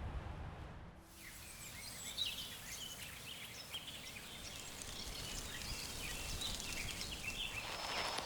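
Several birds chirping and twittering over a faint outdoor background. The calls begin about a second in, as music fades out.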